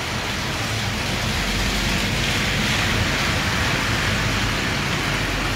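Steady rain falling on a street, an even hiss that grows a little louder over the first couple of seconds and then holds.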